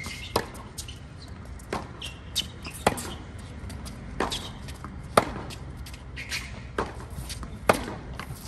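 A tennis rally: racquets strike the ball back and forth on a hard court, a sharp hit about every second.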